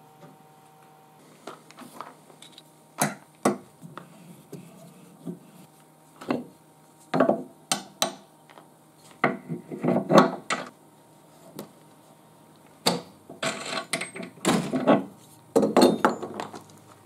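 Irregular clinks, knocks and scrapes of metal spanners, nuts and washers handled against a wooden workbench and a plywood hull as bolts are fitted and tightened by hand, busiest near the end.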